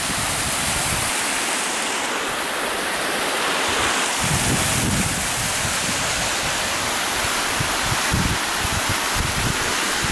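Small mountain waterfall: creek water rushing and splashing steadily down over rock. From about four seconds in, wind buffets the microphone with irregular low rumbles.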